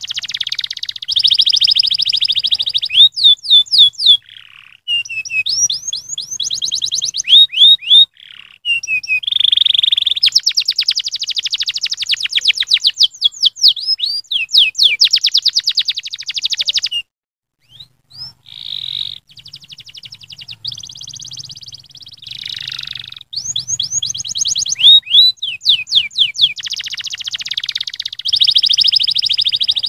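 Domestic canary singing a long song of fast trills and rapidly repeated rising whistled notes, with a short break a little past halfway.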